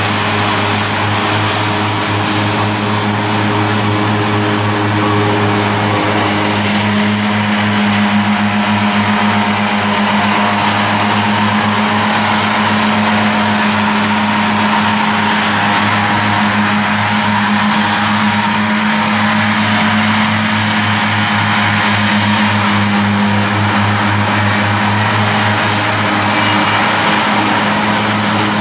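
Claas Cougar 1400 self-propelled mower running steadily under load while mowing: a diesel engine hum mixed with the whir of its disc mowing units cutting grass.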